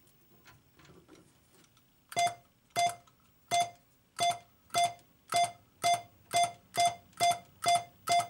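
Joker Poker coin-operated poker machine beeping. After a couple of seconds of faint clicks, a string of short electronic beeps starts, repeating about every half second and getting slightly quicker. The beeps are the machine counting up credits as money goes in.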